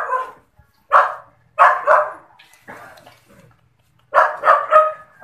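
Dog barking in short, sharp barks: once about a second in, twice in quick succession just after, then three fast barks near the end.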